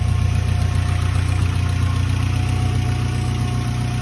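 Ford Sierra RS Cosworth's turbocharged 2.0-litre Cosworth YB four-cylinder engine idling steadily.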